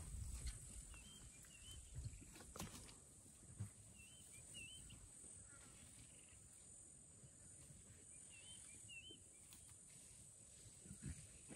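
Quiet bush ambience: a steady high insect buzz, and a bird calling three times, each call a pair of short warbling notes. Faint snaps and rustles come from elephants browsing on branches.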